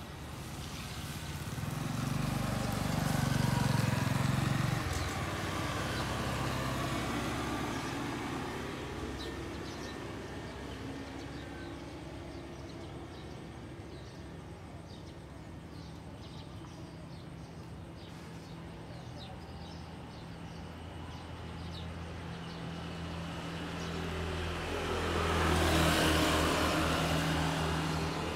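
Road traffic: a vehicle passes a few seconds in and another near the end, each swelling and fading, with a low engine hum between.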